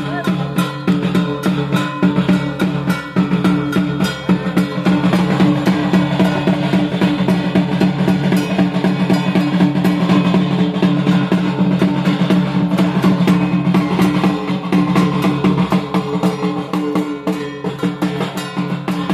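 Dhak drums beaten in a fast, unbroken rhythm, the drumming that drives the dhunuchi dance.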